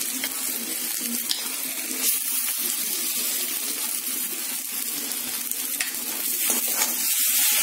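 Mashed potato and spice masala sizzling in hot mustard oil in a kadhai, a steady hiss with a few light scrapes of a metal spatula.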